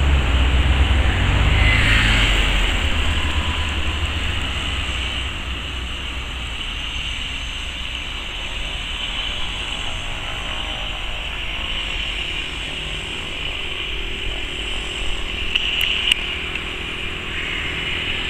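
Cessna 208B Grand Caravan's single Pratt & Whitney PT6A turboprop running at taxi power: a steady high turbine whine over the propeller's drone. The low rumble is strongest in the first few seconds, then eases off.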